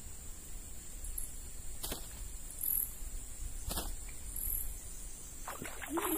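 Quiet swamp-side outdoor ambience, with a steady high hum and a short high chirp repeating about once a second, plus a few faint clicks. Near the end a hooked fish splashes at the water's surface as the fishing pole is lifted, and a man's voice begins.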